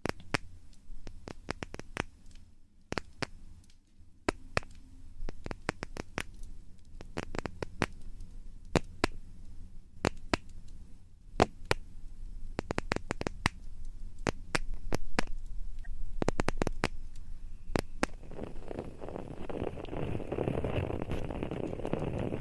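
Close-miked ASMR ear-cleaning and ear-rubbing sounds: scattered sharp crackles and clicks over a low rumble, turning into a denser, steady rubbing noise about eighteen seconds in.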